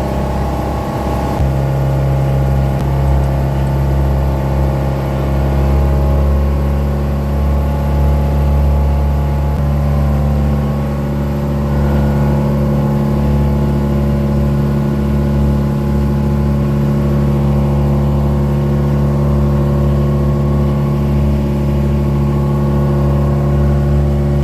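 Engine of a motorized bangka outrigger boat running steadily while under way, a constant pitched hum with a slight change in tone about a second in.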